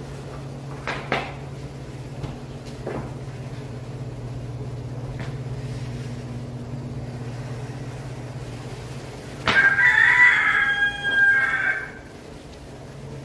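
A rooster crows once near the end, loud and about two and a half seconds long, over a steady low hum. Before it come a few soft clicks and taps as a tablet is fitted into a plastic folio case.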